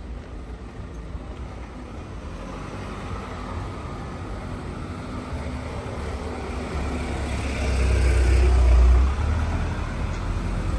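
Street traffic ambience with a motor vehicle passing close by. Its low rumble rises to a peak about eight to nine seconds in, then falls away quickly.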